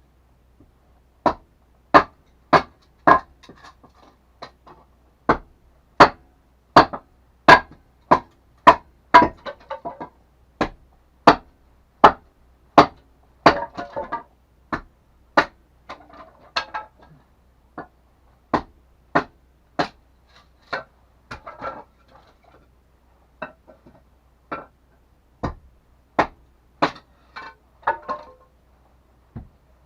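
Hammering on wood: a long run of sharp, ringing blows, about one to two a second, coming more sparsely with gaps in the second half.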